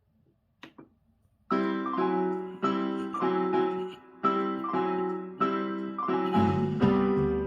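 Yamaha PSR-620 keyboard playing back a song in an electric-piano voice. Repeated chords start about a second and a half in, and a bass line joins near the end. A couple of faint clicks come just before the music.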